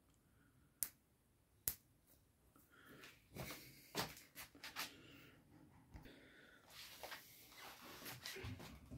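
Handling noise from a cylindrical rechargeable battery cell being turned in the fingers close to the microphone. There are two sharp clicks in the first two seconds, then from about three seconds in a run of small clicks and rustling.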